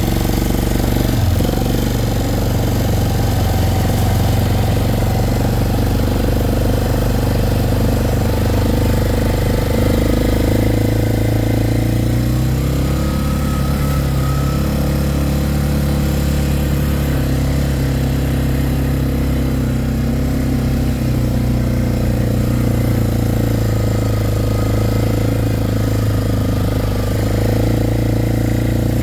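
Vehicle engine running steadily as it is driven along; the engine note shifts about twelve seconds in.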